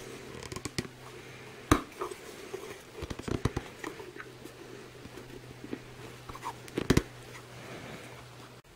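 Hands handling and fitting the rubber parts of a Citroën DS rear engine mount: rubbing and rustling with several sharp knocks, the loudest a couple of seconds in and a close pair near the end, over a faint steady low hum.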